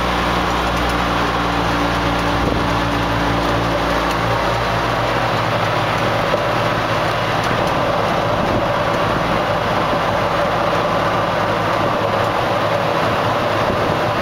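Golf cart driving along a road, heard from inside the cart: a steady motor drone with road and wind noise. The low hum fades about five seconds in, and a higher whine carries on.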